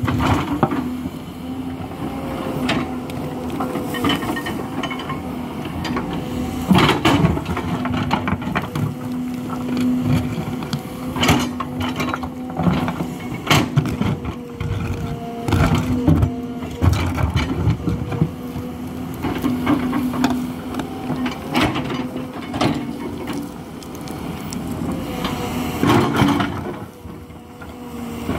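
Hidromek HMK 220LC excavator's diesel engine running steadily under working load, its pitch wavering slightly. Over it come frequent irregular knocks and scrapes of the bucket digging into rock and earth.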